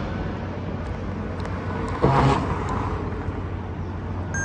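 Street traffic noise: a steady rumble of passing cars, with one brief louder pitched sound about two seconds in.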